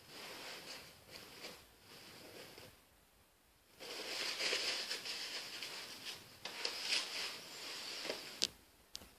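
Rustling and handling noise as a paper sign is held up, turned round and lowered. It comes in two stretches, the second louder, and ends with two sharp clicks near the end.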